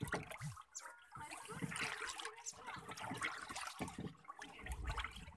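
Liquid sloshing and swirling in a plastic drum as it is stirred round with a wooden stick.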